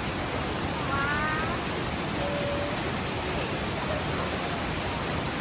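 MacKenzie Falls: the waterfall's steady, even rush of falling water.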